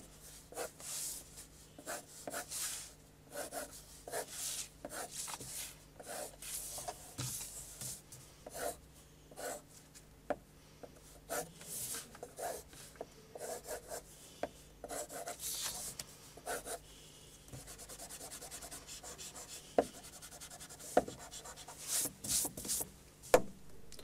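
Graphite pencil sketching on paper: a run of short, quick strokes scratching and rubbing across the sheet, with a couple of sharp clicks about three-quarters of the way through.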